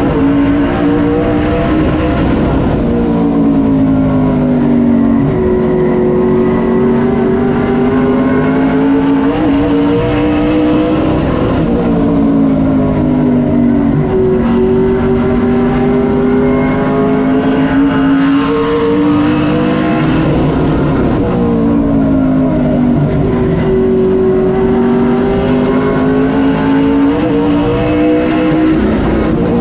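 Sportsman late model race car's V8 engine at racing speed, heard from inside the car, its pitch rising and dropping in a repeating cycle about every eight to nine seconds as it accelerates down the straights and lifts for the turns.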